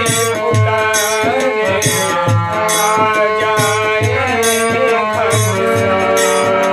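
Music with a steady percussion beat of about two strokes a second. Over it, a pitched melody line glides up and down above a held drone.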